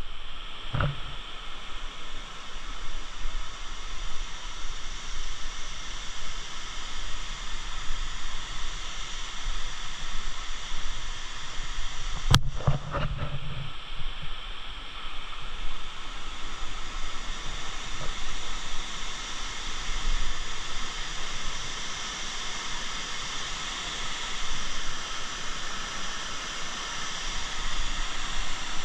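Steady rush of falling water from Navajo Falls, a waterfall, with one sharp knock about twelve seconds in.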